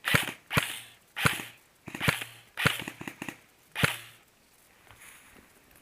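Airsoft guns firing single shots: about eight sharp cracks at irregular intervals, stopping about four seconds in.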